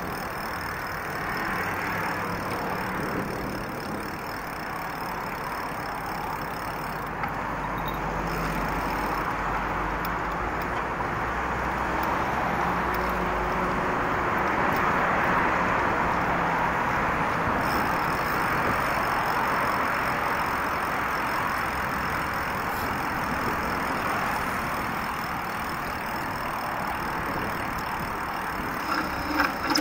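Steady noise of car and bus traffic on a busy multi-lane city road, swelling a little through the middle, with a deeper rumble for several seconds in the first half. A few short, sharp sounds come near the end.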